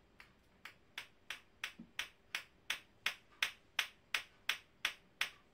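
Homemade latto-latto clackers, two plastic deodorant roll-on balls on a string, knocking together in a regular rhythm. The sharp clacks pick up speed and loudness over the first second or two, then settle at about three a second.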